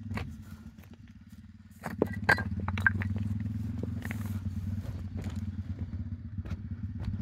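A steady low engine-like hum that gets louder about two seconds in, with scattered clicks and rustles of footsteps through dry brush.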